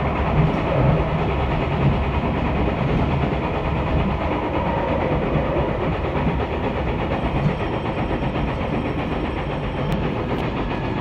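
Local diesel railcar running at speed through a tunnel, heard from inside the cab: a steady, loud rumble of engine and wheels on the rails.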